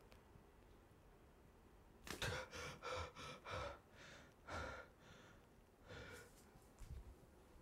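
A man breathing heavily in a run of about eight ragged, gasping breaths, starting about two seconds in and thinning out toward the end.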